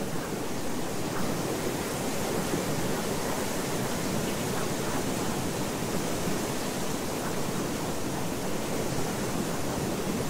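Steady rushing noise, like surf or falling water, with no words to be heard: the masking sound bed of a subliminal audio track, under which affirmations are hidden.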